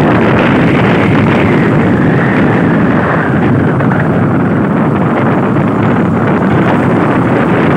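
Steady, loud wind rush over the microphone from riding in a moving vehicle, with road noise underneath.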